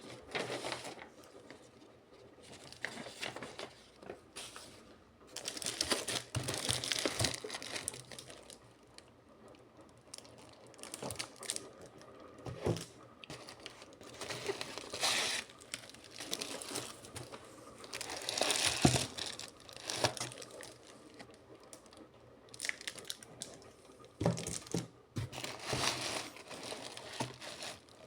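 Perfume packaging being unwrapped by hand: wrapping torn and crinkled in irregular bursts, with a few sharp clicks between them.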